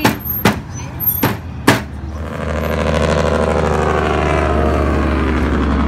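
Four sharp knife chops on a cutting board as meat is cut, then a heavy truck's engine running as it passes on the road, rising about two seconds in and staying loud and steady.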